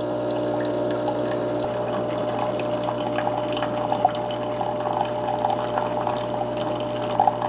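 Cuisinart single-serve coffee maker brewing a K-Cup: its pump hums steadily while a thin stream of coffee pours and splashes into a glass mug, with scattered small splashes.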